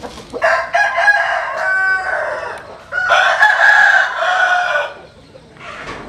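A rooster crowing twice, two long crows back to back, each about two seconds.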